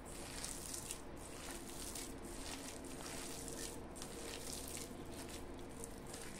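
Bare hands squeezing and tossing shredded cabbage and onion coated in gram flour in a stainless steel bowl, a soft rustling in repeated strokes.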